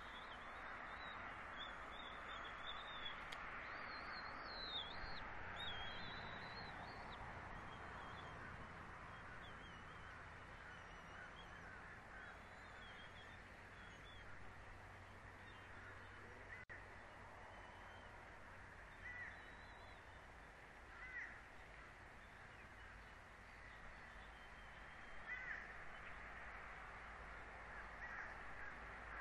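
Outdoor nest-cam ambience: a steady faint hiss with wild birds calling, a thin warbling song in the first few seconds and three short calls later on.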